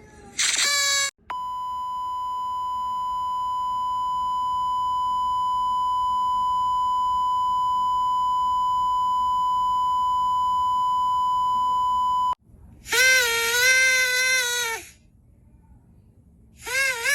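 A long, perfectly steady electronic beep at about 1 kHz that lasts about eleven seconds, after a brief falling blast at the start. Near the end come two short buzzy party horn blower blasts, the first about two seconds long, the second brief.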